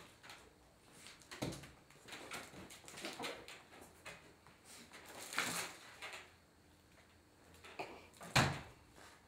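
A few short, wet splats of thrown clumps of soft food hitting a man's shirt and face, spaced a couple of seconds apart, the loudest near the end.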